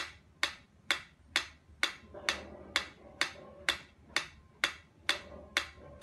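A mechanical metronome ticking steadily, a little over two sharp clicks a second.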